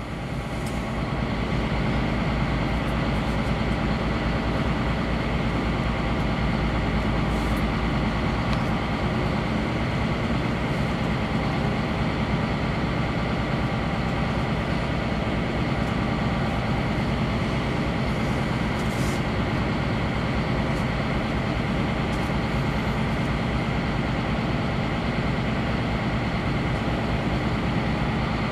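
Motor yacht's engines running steadily under way: a low, even drone with a rushing hiss over it. It swells over the first couple of seconds, then holds level.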